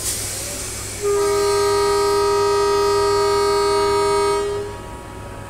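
Indian Railways train horn sounding one long steady blast of about three seconds, starting about a second in, over the low rumble of a running train. A short hiss comes just before it.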